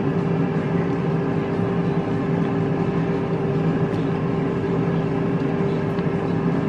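Air fryer's fan running with a steady, unchanging hum and a constant pitched drone.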